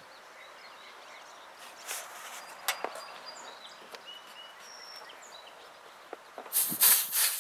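A short, loud hiss near the end as refrigerant escapes while the manifold gauge hose is unscrewed from the mini split outdoor unit's service port. A few faint clicks of the fitting come before it.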